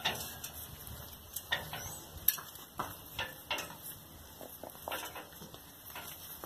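Puppies moving about on a blanket over a hard floor: scattered, irregular light clicks and taps.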